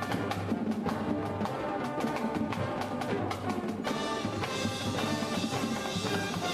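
Marching band playing: sustained brass and wind notes over sharp, rapid drum and percussion strokes, with the full band coming in more densely about four seconds in.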